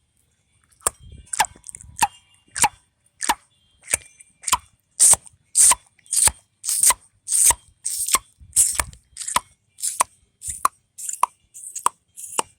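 A steady series of sharp clicks, about one every 0.6 seconds, each with a short ringing tone in it, starting about a second in.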